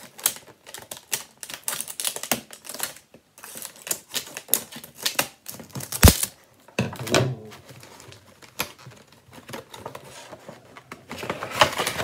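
Plastic and cardboard packaging of a portable doorbell being handled and opened: a run of clicks, taps and rustles, with one sharp knock about six seconds in.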